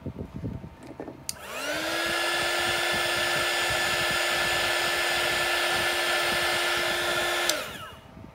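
A handheld hot-air blower switches on with a click about a second in. Its motor spins up to a steady whine over a rush of blown air, aimed down at the wet resin. Near the end it clicks off and the whine falls away.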